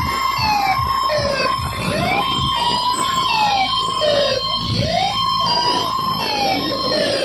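Loud DJ music over a large sound system: a siren-like synth tone repeatedly swoops up and down over a steady high note and a thumping bass beat.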